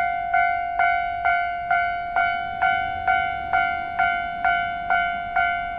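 Japanese railway level-crossing warning bell ringing in a steady repeating ding, a little over two strikes a second, each one dying away before the next. It signals that the crossing is closed for an approaching train.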